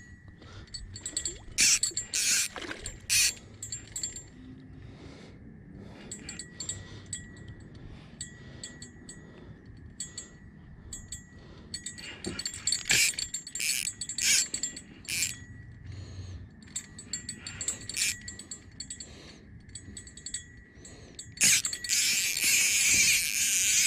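Light metallic clinks and jingles in scattered clusters, about 2 s in, around 13 to 15 s, and thickest near the end, over a faint steady high-pitched tone.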